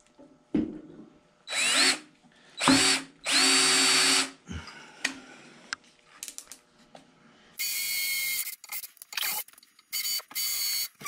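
Cordless drill boring two holes into the cast-iron upper frame of a Delta 14-inch bandsaw. First come three short bursts, the motor whine rising as it spins up and then held steady for about a second. After a pause, a second round of harsher, hissier bursts follows near the end.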